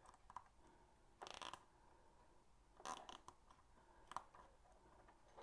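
A nylon cable tie being threaded and pulled tight around a bundle of battery cells: a few faint, short rasps and clicks, about a second apart.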